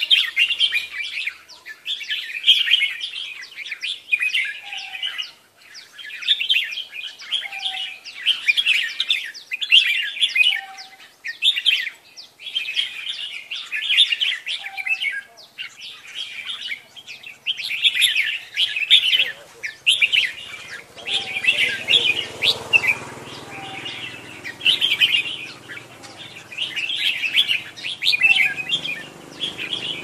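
Caged red-whiskered bulbuls singing: short, bright warbled phrases repeated every second or two, overlapping from more than one bird. A low background rumble joins in from the middle on.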